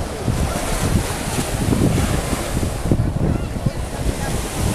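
Wind buffeting an outdoor microphone in irregular low gusts, over a steady hiss of wind and sea.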